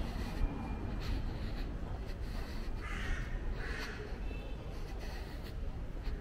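A crow cawing twice in quick succession about three seconds in, two short harsh calls, over a steady low city rumble.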